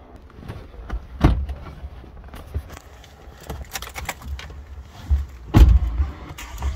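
Van doors shutting and clicks and knocks of people settling into a camper van's cab: two heavy thumps, one about a second in and a louder one near the end, among lighter clicks.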